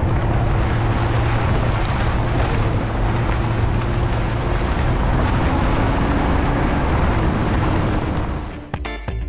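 Off-road vehicle driving on a dirt road, heard right beside its knobby front tyre: a loud, steady rush of tyres on gravel over a low engine drone. It cuts off suddenly near the end as music starts.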